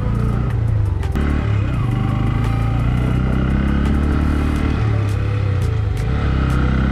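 Bajaj Pulsar N160's single-cylinder engine running on a rough dirt track, its pitch rising and falling with the throttle, with scattered clicks and rattles over the loose surface.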